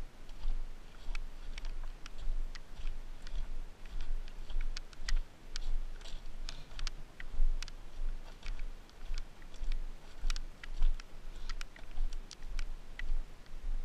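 A dirt bike crossing stony, gravelly ground: many irregular sharp clicks and ticks of stones and gravel, over a low, uneven rumble.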